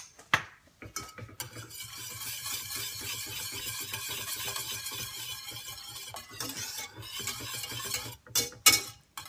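Wire balloon whisk beating double cream into a mushroom velouté in a stainless steel saucepan: a rapid, steady whisking of wire against the pan, with a few sharp knocks near the end.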